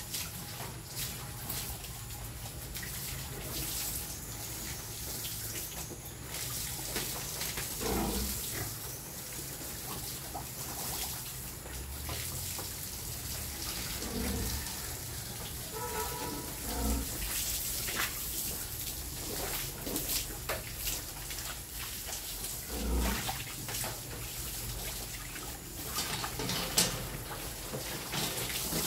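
Water running and splashing while a piglet pen is washed out, with a few short, low, louder sounds mixed in.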